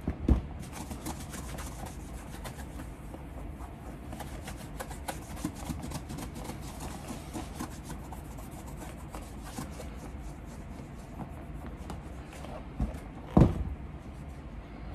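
A cloth rubbing and wiping over the leather upper of a Gaziano & Girling punched cap-toe shoe, a steady scratchy friction of many short strokes, as liquid cleaner lifts old factory cream and wax off the new leather. A sharp knock sounds just after the start and again about 13 seconds in.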